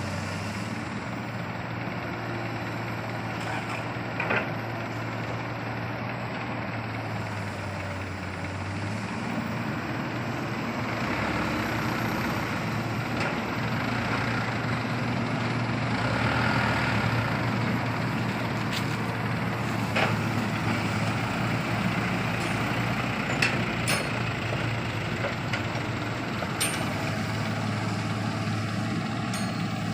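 Heavy diesel earthmoving machinery running steadily, its engine working harder from about a third of the way in, with a few sharp knocks.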